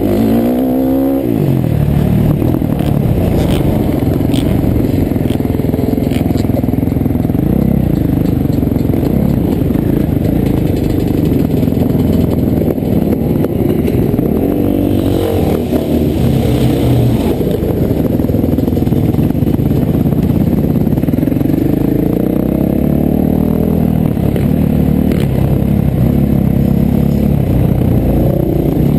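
Motocross bike engine revving hard as it is raced, its pitch climbing and dropping again and again with throttle and gear changes, including a sharp drop about a second in.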